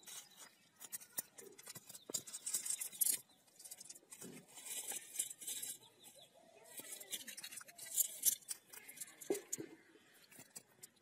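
Irregular bursts of wet crackling and slapping as fish are worked out of a cast net and flap on wet mud.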